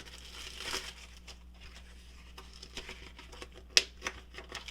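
Handling of a small metal toolbox and its foam mat: light rustling and small taps, with one sharp click late on and a smaller one just after.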